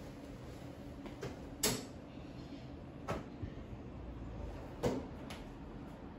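A few short, sharp knocks and clicks of things being handled, about six in three loose pairs, the loudest just under two seconds in, over a low steady room hum.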